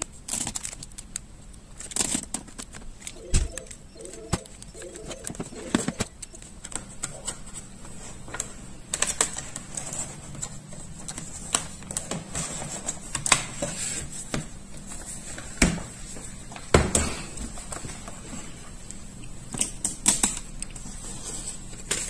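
Irregular light clicks and taps, about a dozen scattered across the stretch, over a faint steady high-pitched whine and low hum.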